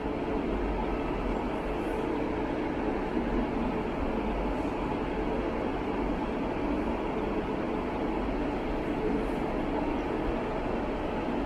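Steady hum and rumble of a red electric regional train standing at a platform, echoing under a station train shed.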